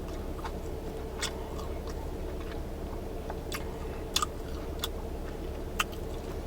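A person chewing and biting into tacos, with a few sharp crunches over a steady low hum.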